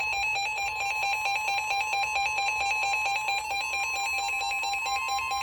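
NOAA Weather Radio warning alarm: a steady single tone near 1 kHz that comes before a tornado warning is read. A rapid, pulsing electronic alarm beep sounds over it.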